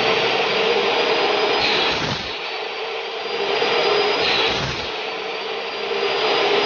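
Chop saw running at full speed and cutting through aluminium window-frame section, a steady motor drone under a high blade whine. The saw grows louder twice, about two seconds and four and a half seconds in, as the blade bites into the metal.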